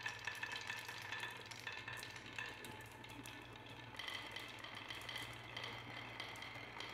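Many glass marbles rolling along grooved wooden marble-run tracks: a continuous rolling rattle with many small clicks and clinks.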